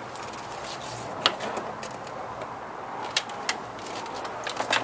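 Plastic front fairing of a Kawasaki Ninja 650R being worked back into place by hand: a few sharp clicks and knocks of the plastic panels, with a cluster of them near the end, over a steady faint hiss.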